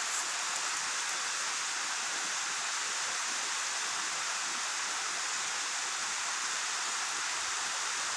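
Steady, even rush of water from a waterfall.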